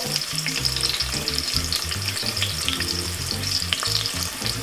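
Food frying in hot oil in a pan: a steady sizzle with many small crackles.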